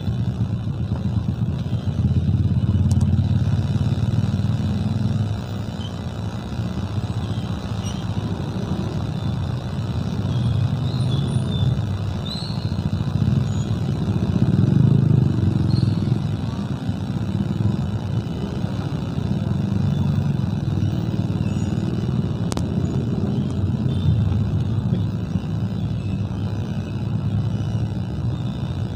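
Jammed city traffic of cars and motorcycles crawling and idling on a wet road: a steady low rumble of engines that swells and eases.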